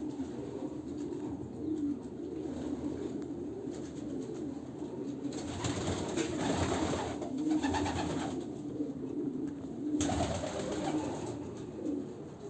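A flock of racing pigeons cooing continuously, many overlapping coos, with two spells of rustling noise about five and ten seconds in.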